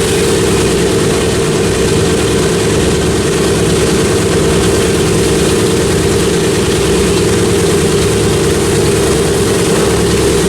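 Piston engines of a World War II propeller warbird running loud and steady, with a strong even hum and no rise or fall.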